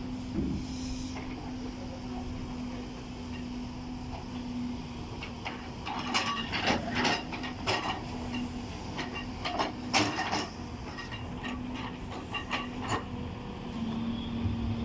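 Tata Hitachi excavator's diesel engine running with a steady hum while it digs soil, with bursts of metallic clanking and scraping from the bucket about midway and again a little later.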